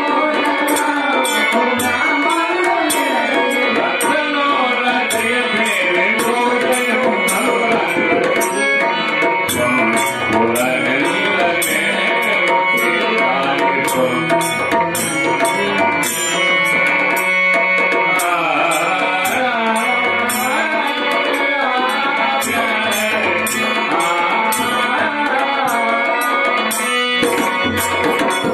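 Telugu devotional bhajan: a voice singing the melody over a harmonium's held reed tones, with small brass hand cymbals (talam) clashing a steady beat.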